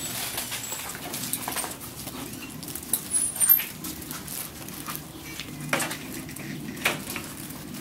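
Cavalier King Charles Spaniel puppies scrabbling and tussling with their toys on a sandy floor: scattered rustles and light clicks, a few sharper ones about three seconds in and again near the end.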